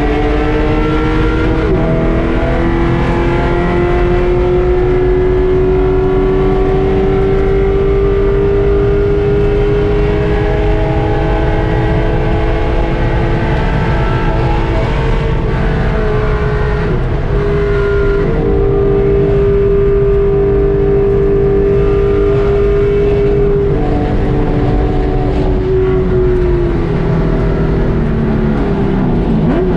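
Race car engine heard from inside the cockpit, held at high revs on a long full-throttle run with its pitch slowly climbing, over a constant rush of road and wind noise. The pitch dips about 26 seconds in and drops again near the end.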